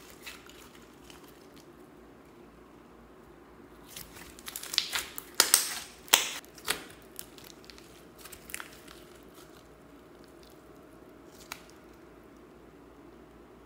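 Hands pressing and squeezing a large mass of glossy slime mixed with foam beads, giving sharp wet pops and crackles. They come in a dense cluster about four to seven seconds in, then thin to a few single pops.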